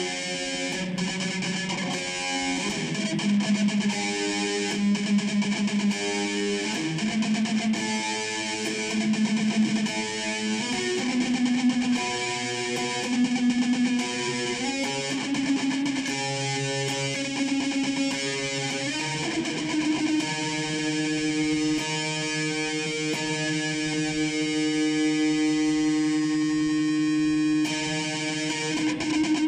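Dean Razorback electric guitar played through an amp: a string of chords changing about every second, then a long held chord over the last third. Its intonation is off, so the chords sound increasingly out of tune.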